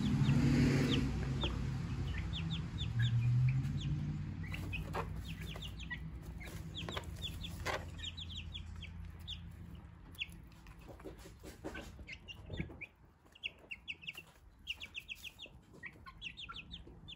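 Silkie chicks peeping in quick runs of short, high cheeps, with a silkie hen's low clucking in the first few seconds. Scattered soft clicks and rustles from birds scratching in straw.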